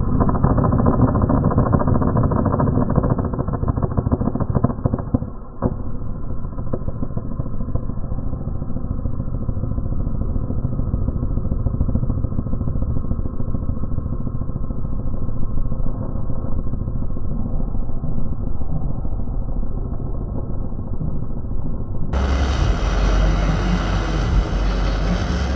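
TIG welding arc on sheet steel, slowed down heavily along with the slow-motion picture, so its crackle comes out as a deep, muffled, continuous rumbling. Near the end the sound turns brighter, with a heavy low rumble underneath.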